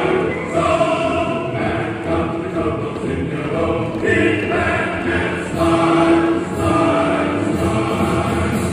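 A school choir singing, with notes held for about half a second to a second at a time.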